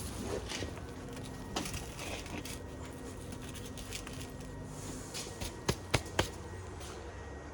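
A low steady hum with a few sharp knocks: a faint one early, then three in quick succession a little past the middle.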